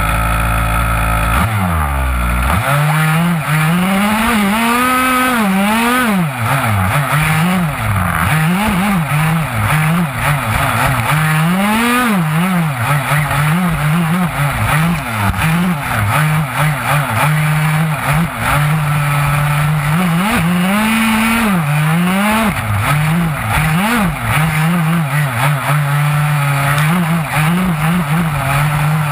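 HPI Baja 5B SS 1/5-scale buggy's small two-stroke petrol engine, heard up close from a camera mounted on the car. It idles steadily, then about a second and a half in it picks up and revs up and down constantly as the buggy is driven.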